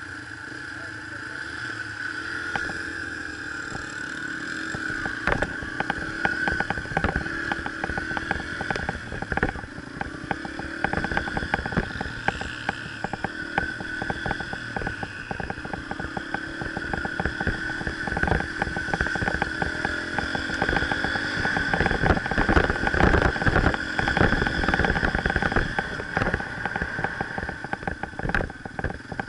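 Dirt bike engine running under way, heard from the rider's helmet camera; it grows louder over the first few seconds as the bike pulls off and then keeps going with a rough, uneven note.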